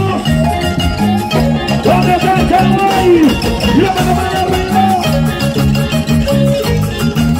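Live Andean band music, amplified, with harp, drum kit and a man singing into a microphone over a steady beat and a repeating bass line.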